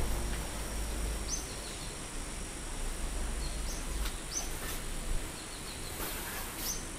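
Small bird chirping outside: short high, upward-flicking calls, each trailing into a few softer lower notes, about four times over a low hum of city background. A brief cloth rustle comes near the end.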